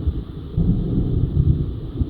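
Thunder rumbling low and rough, growing louder about half a second in.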